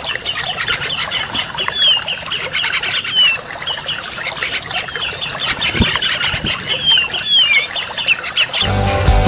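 Grey-cheeked bulbuls (cucak jenggot) calling in a bird-lure recording: a dense, fast, harsh chatter with short slurred whistles mixed in. Loud rock music cuts in near the end.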